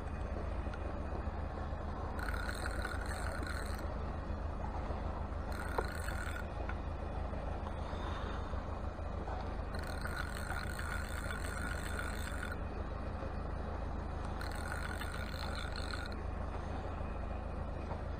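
Hardy Altex No. 2 Mk V fixed-spool reel being wound in four bursts of a second or two each, a mechanical whirr over a steady low rumble.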